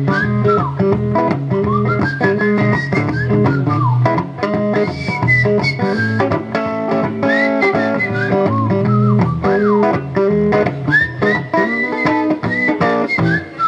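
Blues band playing an instrumental break: a lead guitar line with bent, gliding notes over a steady guitar and bass accompaniment.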